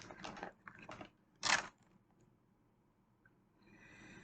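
A few short rustling, rattling bursts of a box of crayons being handled, the loudest about a second and a half in, then a faint brief rustle near the end.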